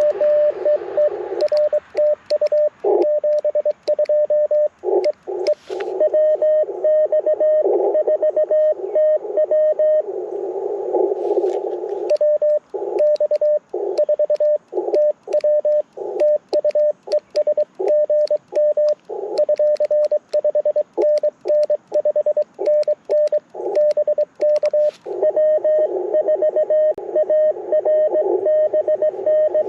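Morse code (CW) tones from an Icom IC-705 transceiver, a steady mid-pitched beep keyed rapidly into dots and dashes over receiver band-noise hiss, with light mechanical clicking of the paddle key through much of it.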